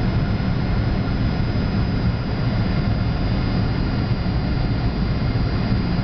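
Steady cabin noise of an Airbus A300-600 on its descent to land: the turbofan engines' low rumble with faint steady whining tones above it.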